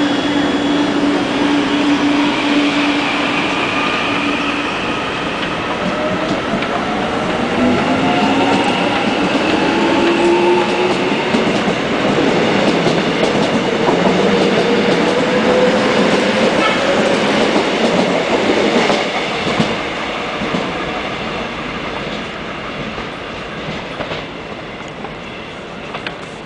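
Korail electric commuter train pulling out of the platform and gathering speed. A steady hum gives way to several rising motor whines over a rumble of wheels on rail, with some clickety-clack, then the sound eases off as the train moves away.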